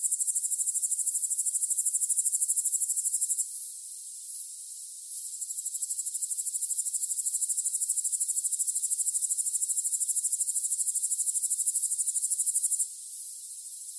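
High-pitched insect trill: a rapid pulsing buzz that stops about three and a half seconds in, starts again about five seconds in and stops near the end. A fainter steady insect chorus runs beneath it.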